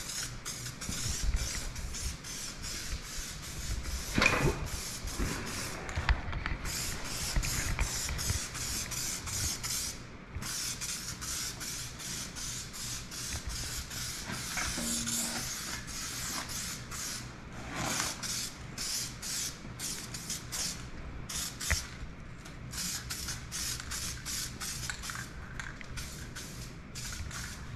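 Aerosol spray paint can hissing in many short bursts with brief gaps between them, over a low steady hum. A few knocks sound between about four and eight seconds in.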